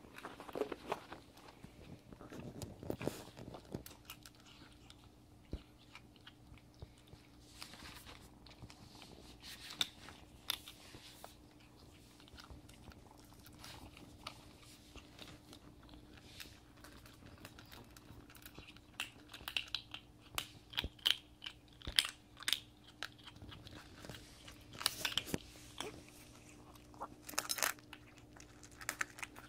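Kittens crunching dry kibble from a bowl: irregular small crunches and clicks that come thicker and louder in the last third.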